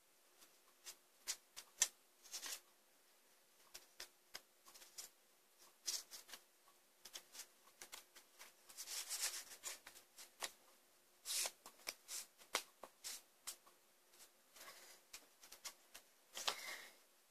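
A small stack of cards being shuffled and handled by hand: an irregular run of light flicks and clicks, broken by a few longer riffling rustles.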